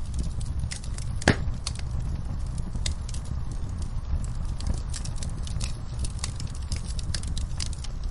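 Wood fire crackling, with many sharp snaps and one louder pop about a second in, over a steady low rumble.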